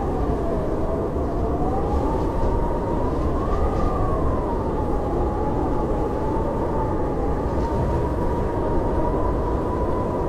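Blizzard wind howling: a steady rush of wind with a whistling tone that wavers slowly up and down in pitch, rising highest about three and a half seconds in.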